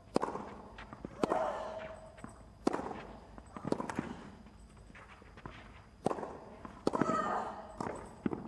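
Tennis rally on a clay court: sharp racket-on-ball hits, about seven shots a second or so apart, with a player's grunt on several strokes.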